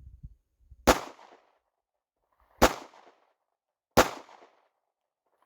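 Three single pistol shots, fired one at a time about a second and a half apart, each with a short echo trailing off.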